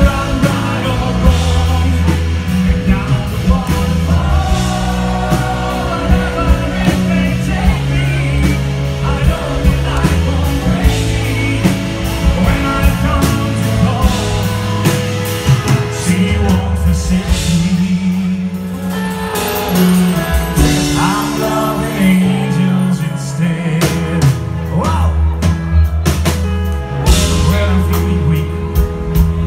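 Live rock band playing a song with a male lead vocal over drums, bass and keyboards, amplified through a PA.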